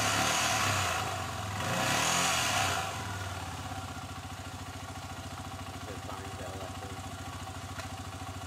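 Motorcycle engines swelling loudly twice, then a single engine idling with an even, fast pulsing beat.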